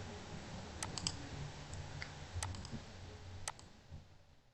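A handful of faint, sharp clicks at a computer, irregularly spaced, over a faint low hum that fades out near the end.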